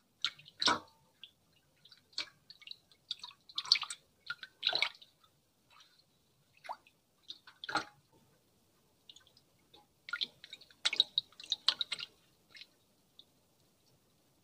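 ASMR foley imitating hair washing: irregular wet squishing, crackling and dripping sounds made close to the microphone, in uneven clusters of short bursts.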